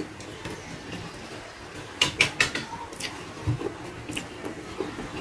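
Chewing and lip smacking from eating by hand. A quick run of sharp, wet mouth smacks comes about two seconds in, followed by scattered single clicks.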